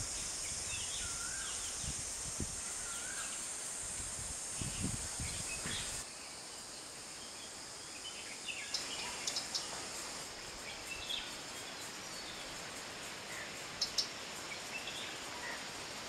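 Outdoor woodland ambience: a steady high-pitched insect drone with scattered short bird chirps. The background changes abruptly about six seconds in.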